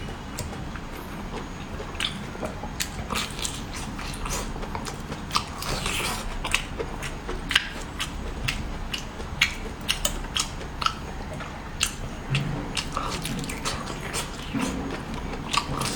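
A person eating seafood close to the microphone: wet chewing and biting with irregular sharp smacks and clicks, a few a second, over a steady low background rumble.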